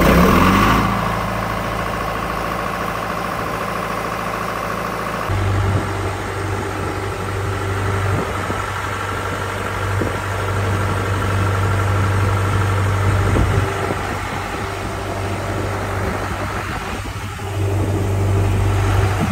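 A John Deere diesel irrigation engine has just started and runs at low throttle, loudest right at the start and then settling into a steady run. About five seconds in, the sound changes abruptly to a steadier, deeper engine hum.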